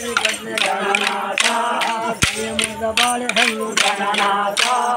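Group of voices singing a folk song, with sharp rhythmic clacks about two to three a second from dancers' sticks struck together in time.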